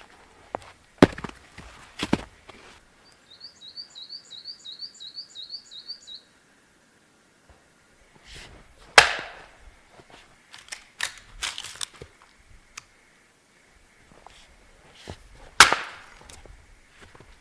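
Firewood being chopped with an axe: single sharp blows with pauses between them, the two loudest about nine and sixteen seconds in. Between the early blows a small bird calls a quick run of about nine short rising notes.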